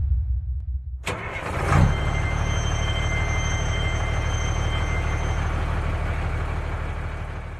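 Engine start sound effect: the engine catches suddenly about a second in, surges briefly, then settles into a steady idle that fades out near the end.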